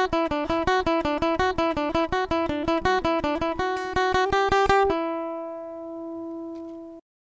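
Acoustic guitar playing a fast run of picked notes, ending on a final chord that rings for about two seconds and then cuts off abruptly.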